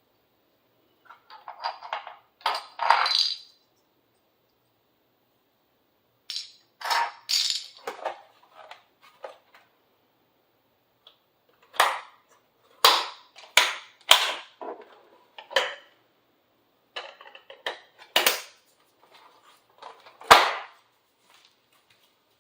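Sharp plastic clicks and clacks from the keyboard and its small parts being handled, in short clusters separated by stretches of silence.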